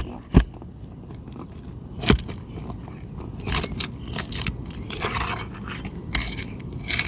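Roof snake (shingle nail remover) scraping and knocking under an asphalt shingle while working loose a stubborn nail driven at an angle. Sharp clicks come near the start and about two seconds in, followed by a stretch of scratchy scraping.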